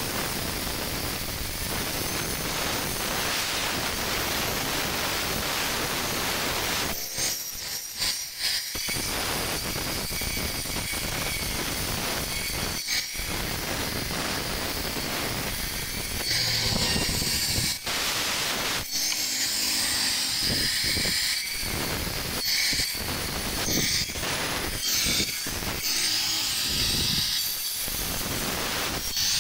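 Handheld electric angle grinder with a cutting disc grinding into a white stone statue: a steady, loud, hissing grind, broken by a few short gaps where the disc leaves the stone.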